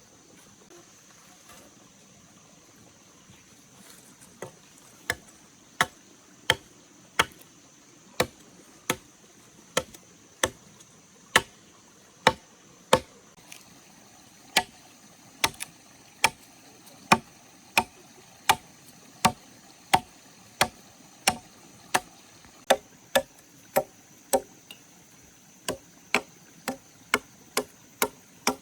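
Repeated chopping strikes of a tool on wood at a steady pace, about one and a half strokes a second, starting about four seconds in.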